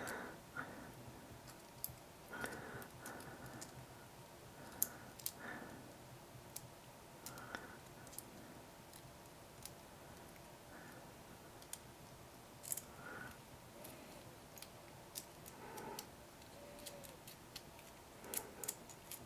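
Faint, scattered small clicks and light rubbing from hands handling a circuit-board front panel with its metal audio jacks and nuts.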